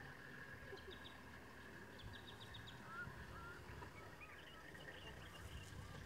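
Faint wild bird calls: short, rapid rattling trills and scattered chirps, over a low steady hum.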